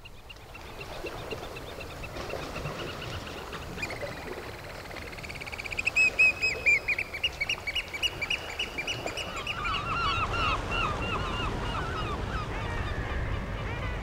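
Eurasian oystercatchers calling to each other: rapid trilling series of high piping notes that build about four seconds in and are loudest a little past halfway, with a second, lower-pitched series joining near the end.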